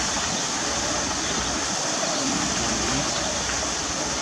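Artificial waterfall pouring steadily over rocks into a pool.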